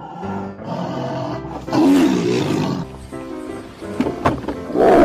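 Tiger roar sound effect over background music, one roar about two seconds in and another starting near the end.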